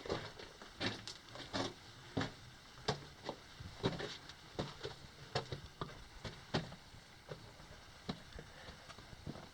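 Irregular knocks and scrapes of a person crawling over rock and loose gravel in a narrow mine tunnel, about one or two sharp strikes a second.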